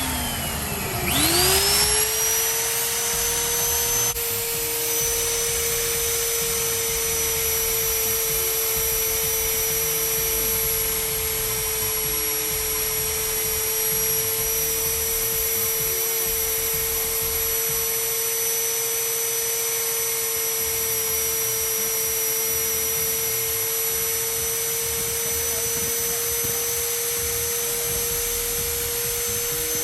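Electric motor of a Bossman BCM-40 magnetic drilling machine starting up about a second in, rising in pitch and then running at a steady speed with a constant high whine.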